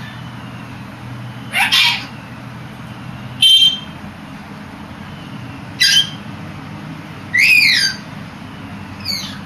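A pet bird giving five short, separate squawks and whistles, the loudest about three and a half seconds in and a longer bending chirp near the end. A steady low hum runs underneath.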